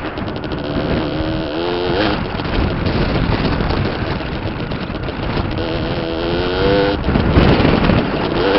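A Beta RRT 50 Enduro's 50cc two-stroke engine running, its pitch rising in short revs several times. A louder, rough stretch of noise comes about seven seconds in.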